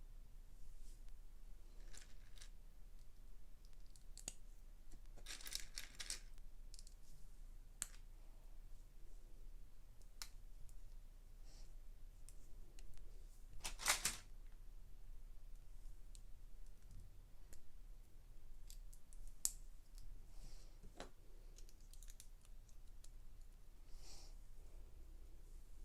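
Plastic Lego bricks being handled and pressed together: faint, scattered clicks and rustles, with one louder click about halfway through.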